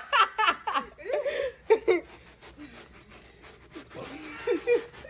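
A stiff hand brush scrubbing carpet pile in rapid back-and-forth strokes, about six a second, with laughter at the start and again near the end.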